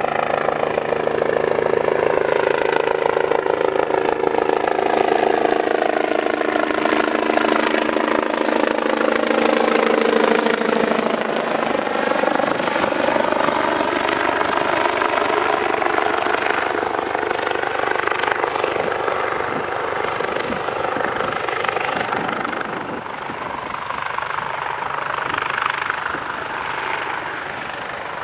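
Air ambulance helicopter flying low and close, its turbine whine and rotor noise loud and steady. The whine drops in pitch about eleven seconds in as it passes by, then it keeps running a little quieter nearby.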